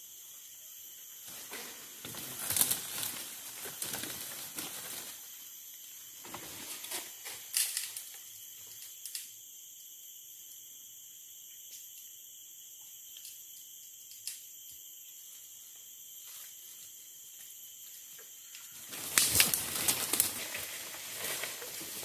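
Leaves and branches rustling in several bursts, the loudest near the end, as a Bornean orangutan climbs down a tree and reaches the leaf litter. Under it runs a steady high-pitched insect chorus.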